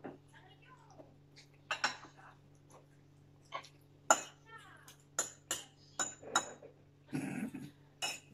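Metal forks clinking and scraping on ceramic plates in a run of sharp clicks, some with a short ring, mixed with noodles being slurped. A short vocal burst about seven seconds in.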